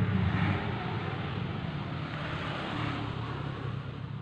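A motor vehicle engine running steadily, slowly fading.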